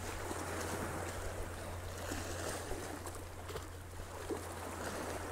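Small sea waves washing against shore rocks: a steady, even wash of water with a faint constant low hum underneath.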